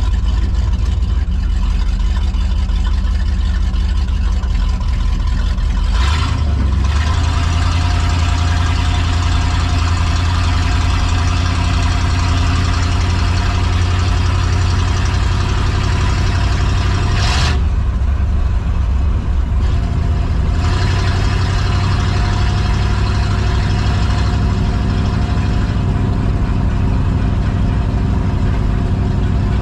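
The carbureted engine of a 1985 Ford F-250 off-road race truck running steadily as the truck is driven, with brief changes in the engine note about 6 and 17 seconds in.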